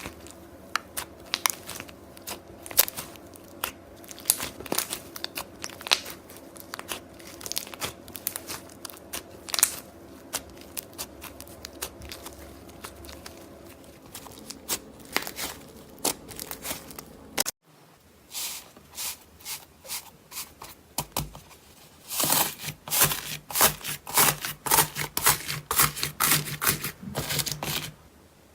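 Slime being poked and squeezed by hand, making a run of sharp crackling clicks and pops. The clip cuts briefly about two-thirds in, and after that the crackling comes louder and denser.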